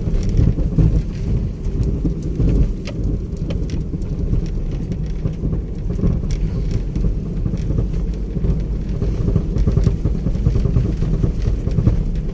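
Steady low rumble of a vehicle on the move, with scattered light clicks and rattles.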